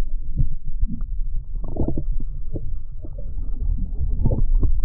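Muffled underwater sound: a low, churning rumble of water with irregular short knocks and clicks, all high sound cut away as it is heard below the surface.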